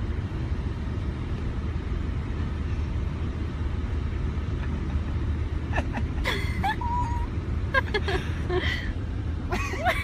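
A black-and-white cat meowing loudly several times in the second half, with bending, drawn-out calls, one of them held. Under it runs the steady low rumble of a moving car heard from inside.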